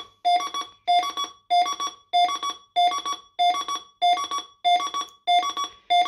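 Optima Mk7 burglar alarm control panel's built-in sounder giving a repeating electronic beep pattern after the code is entered, about one and a half cycles a second. Each cycle is a lower tone followed by quick higher pips.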